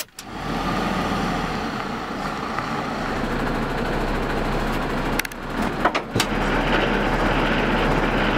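Heavy truck's diesel engine running steadily. About five seconds in, a few sharp clicks and a short dip break it, then it runs on.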